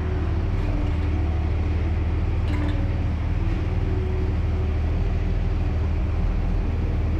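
Engine of a modified Jeep-style off-road vehicle running steadily, a deep, even rumble.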